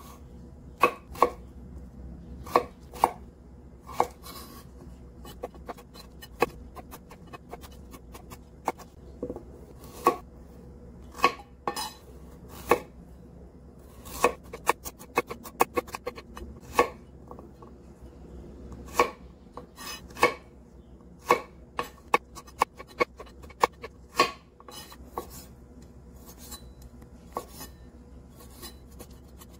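Kitchen knife cutting potatoes, carrot and hot dogs on a wooden cutting board: irregular sharp knocks of the blade striking the board, some in quick runs, fewer near the end.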